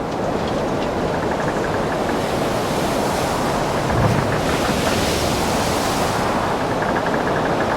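Storm at sea: heavy waves surging with steady wind noise, and a louder, deeper wave surge about four seconds in.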